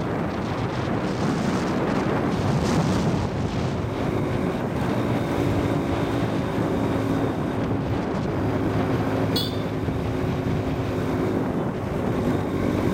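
Wind buffeting the microphone of a moving motorcycle, with the motorcycle's engine running steadily underneath. A brief sharp high sound cuts through about nine seconds in.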